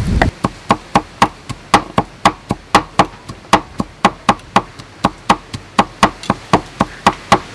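Two knives mincing garlic and red chillies on a thick round wooden chopping block: quick, even knocks, about four a second.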